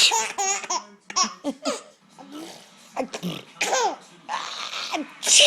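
A baby laughing in short bursts at an adult's fake sneezes. One "achoo" lands right at the start and another builds up and lands near the end, each followed by a fresh burst of laughter.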